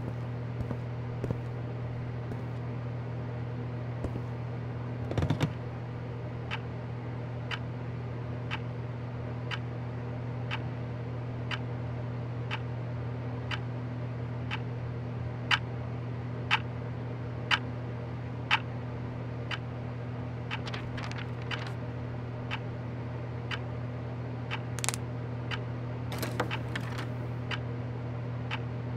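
Steady low hum, with sharp ticks at about one a second through the middle stretch. A few louder, irregular clicks and knocks come near the start and again near the end.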